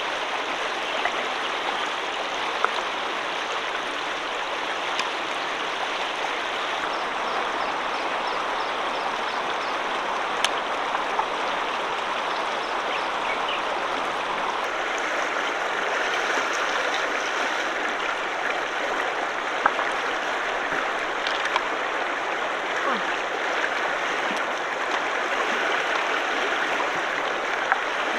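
Shallow river water running steadily, with a few sharp clicks now and then.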